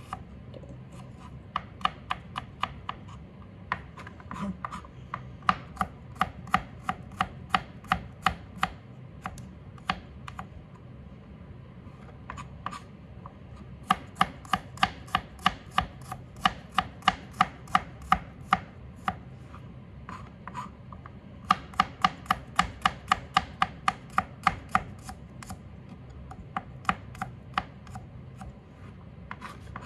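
Kitchen knife finely chopping peeled garlic cloves on a plastic cutting board. Quick runs of knocks, about three or four a second, stop for short pauses a few times.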